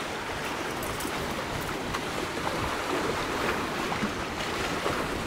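Sea surf washing against the rocks, a steady rushing hiss of waves.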